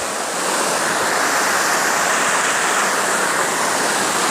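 Steady, even rush of the Spread Eagle Falls waterfall pouring down.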